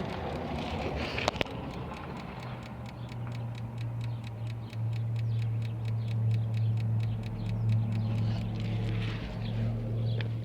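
A steady low hum with rapid, evenly spaced clicking from the transmission area of a 2000 Infiniti i30 with the engine off. The hum sets in about three seconds in and settles about two seconds later. It is a weird noise the owner cannot explain in a car that won't start.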